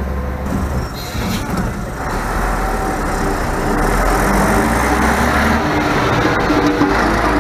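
Diesel engine of an Ikarus 280.08 articulated bus running as the bus drives past close by, growing louder after about two seconds.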